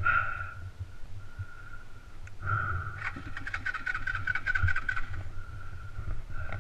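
Suzuki DR200's single-cylinder four-stroke engine running at low speed on a rough dirt trail, with a run of quick clicks and rattles in the middle.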